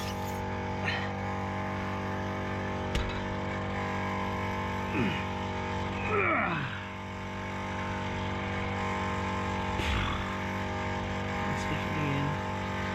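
A motor running with a steady hum, with a few sharp clicks and two short sounds falling in pitch about five and six seconds in.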